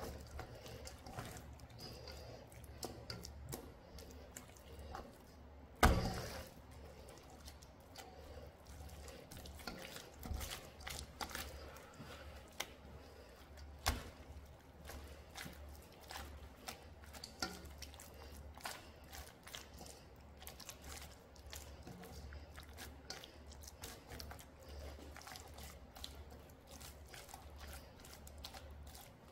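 Wet squelching and squishing of hands rubbing thick chili seasoning paste into salted napa cabbage leaves in a stainless steel bowl, with many small irregular clicks over a low steady hum. A louder knock about six seconds in and a sharper one near fourteen seconds.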